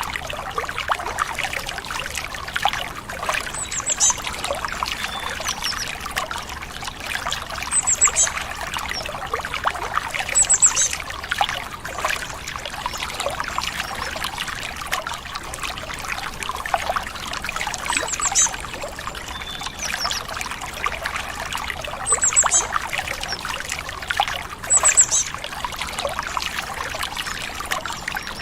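A stream trickling and splashing steadily. Short high bird chirps come about six times, a few seconds apart.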